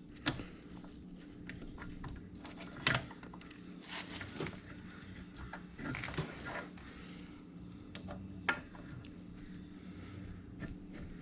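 Scattered light metal clicks and scrapes as a spring-loaded dirt bike footpeg is forced into its mount against its spring and the pivot pin holes are worked into line, over a faint steady hum.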